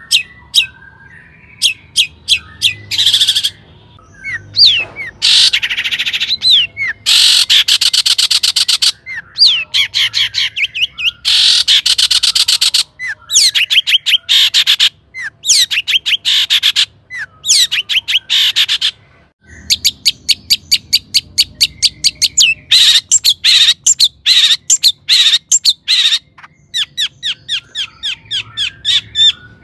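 Long-tailed shrike (cendet) singing vigorously: fast runs of sharp, rapidly repeated notes alternating with harsh, rasping chatter, delivered in bursts with brief pauses between them.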